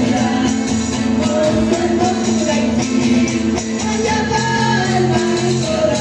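Live cueca music: voices singing over an accordion, with a tambourine keeping a steady beat.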